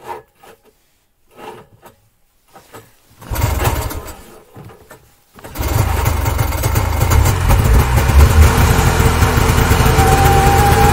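A 1978 Moto-Ski Futura snowmobile's 440 two-stroke engine starting. It catches about three seconds in and runs for two seconds, then sags and fires again, running loud and steady, with a higher tone coming in near the end. The owner says it does not run well and needs troubleshooting.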